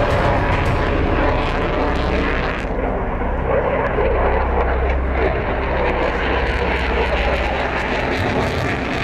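Lockheed Martin F-22 Raptor's twin F119 afterburning turbofans as the jet manoeuvres overhead: steady jet engine noise.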